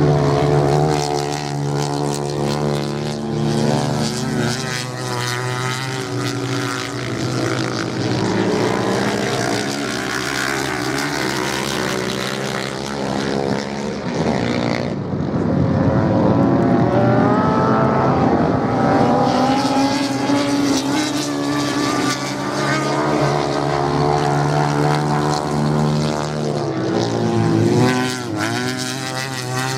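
Racing motorcycle engines on a sand track, revving up and down as the bikes accelerate, shift and ease off for the turns. Engine notes rise and fall as bikes pass, with two or more running at once at times.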